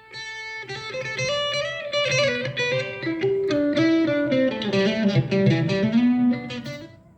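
Electric guitar played through a Donner Arena 2000 multi-effects processor into PA speakers: a single-note melodic line, one note after another, fading out near the end.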